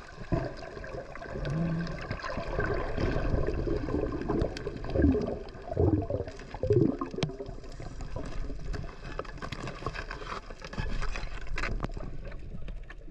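Water gurgling and bubbling, with a few louder gurgles in the middle.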